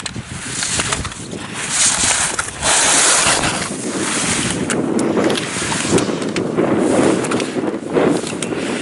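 Wind rushing over the microphone together with skis scraping over the snow, a steady rushing noise that grows louder about two seconds in.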